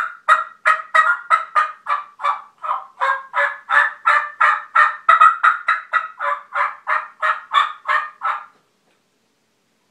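Mouth call blown to imitate a hen turkey: a long, excited run of yelps at about three notes a second, stopping about eight and a half seconds in. It is a hunter's calling sequence meant to make a gobbler fire back.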